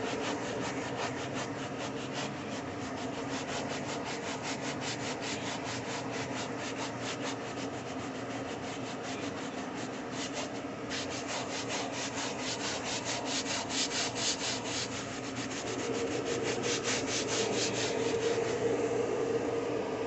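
Brush head of a Bissell foam spot-cleaner can scrubbing back and forth on a woven fabric car seat to lift a spilled-food stain: a steady run of quick rubbing strokes, several a second, with a short break about eleven seconds in.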